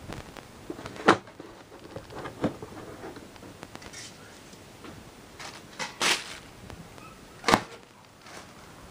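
Handling noises: a few sharp knocks with a longer rustle between them, as the subwoofer and its packaging are handled.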